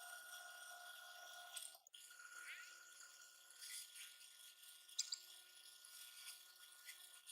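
Near silence: faint steady hum with a brief break just under two seconds in and a few light clicks.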